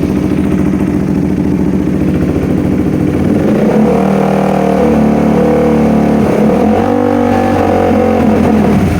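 KTM Duke 390's single-cylinder engine idling, then revved twice, with a dip between the revs. The revs cut in and out, a hesitation the mechanic traces to a faulty throttle position sensor.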